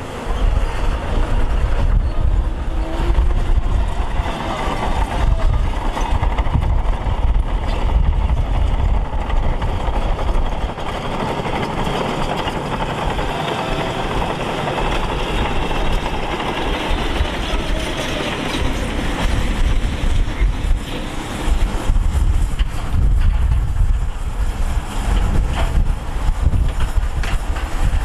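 Diesel engine of heavy earthmoving machinery running steadily, with a dense mechanical clatter and deep rumble.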